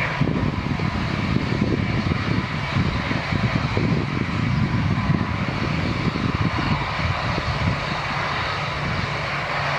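Airbus A330-900neo's twin turbofans at takeoff thrust during the takeoff roll, a steady, heavy low rumble with a crackling texture and a fainter hiss above it.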